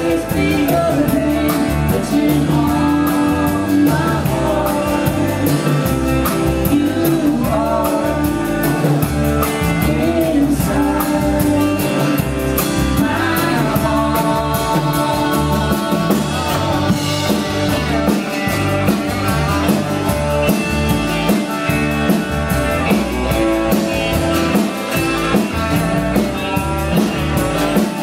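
Live band playing a blues/Americana song: singing over guitar and drum kit.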